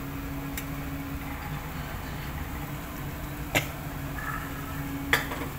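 Three short, sharp metallic knocks as a steel bowl and spatula strike a kadhai while raw green peas are tipped into the frying masala, over a steady low hum.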